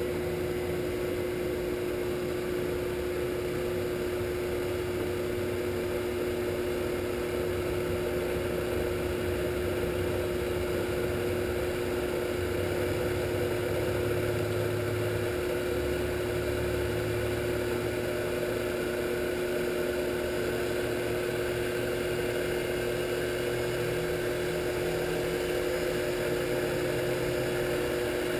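Shopsmith 10ER driven by belt from a Leeson 3/4 HP DC motor, running steadily without load in medium range at about 1600 rpm and up. It makes a steady hum with a constant tone over a low rumble.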